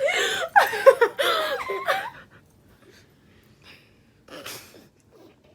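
People laughing loudly for about two seconds, then quiet, with one short breathy burst about four and a half seconds in.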